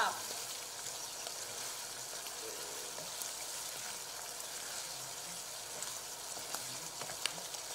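Bolognese sauce of minced beef, mushrooms and tomato sizzling steadily in a nonstick pan as it is stirred with a wooden spatula, cooking down until its liquid is absorbed. A few faint ticks of the spatula against the pan.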